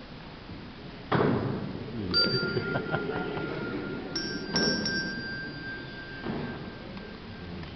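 A sharp knock about a second in, then two bell-like notes: a short one near two seconds, and a longer one from about four seconds that rings on for about three seconds. A low murmur from the room lies under them.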